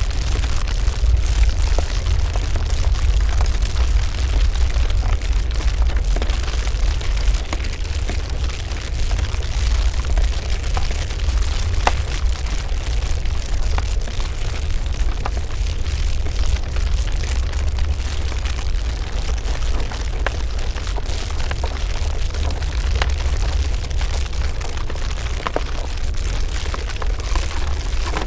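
Layered foley sound effect: a continuous deep rumble with scattered crackles and pops over it.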